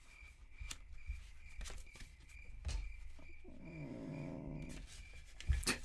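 A domestic cat growling at another cat, a drawn-out low yowl starting about three and a half seconds in. There are faint scattered clicks throughout and a sharper knock near the end.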